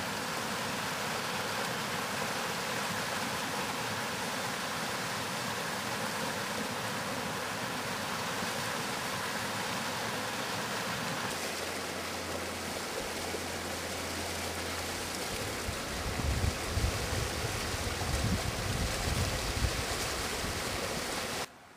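Shallow river water rushing steadily over a low weir and around rocks. In the last few seconds uneven low rumbles of wind on the microphone come and go.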